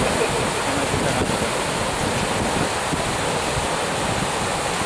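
Sea surf breaking and washing over boulders at the water's edge, a steady, unbroken rush of water.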